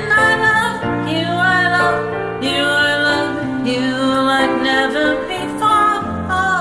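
A woman singing a slow ballad over a soft instrumental karaoke backing track, the voice holding long notes with vibrato.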